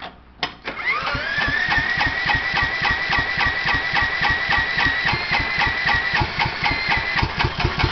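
An electric drill spins over a John Deere JX85's Kawasaki FC150V single-cylinder engine to start it. The drill gives a high steady whine that rises as it spins up, over rhythmic compression thumps at about five a second, and winds down near the end.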